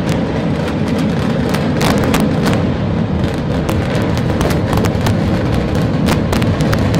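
Explosive demolition charges firing in sequence through a high-rise concrete tower: many sharp cracks at uneven intervals over a loud, continuous low rumble as the building starts to collapse.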